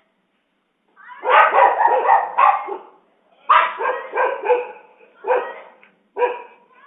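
Dog barking in repeated bursts: a long run of barks about a second in, then three shorter runs.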